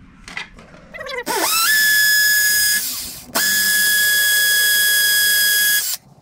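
DeWalt XR cordless drill boring into a concrete block wall. Its motor whine rises as it spins up about a second in and runs steady, eases off briefly, then starts again and runs until it stops abruptly just before the end.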